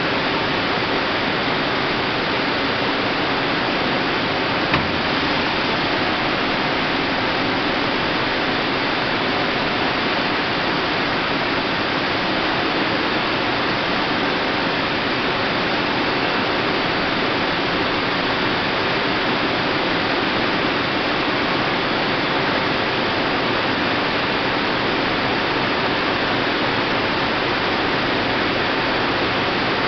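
Astepo aseptic filler running as it fills a T-liner bag in an IBC: a steady, even rushing noise of the filling line and product flow. A single short click about five seconds in.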